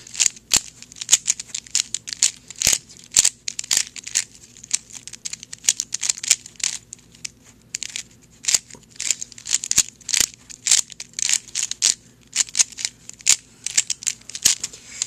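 A 3x3 speedcube being turned by hand, most likely being scrambled: fast, irregular clicking and clacking of its plastic layers, several turns a second in short runs with brief pauses.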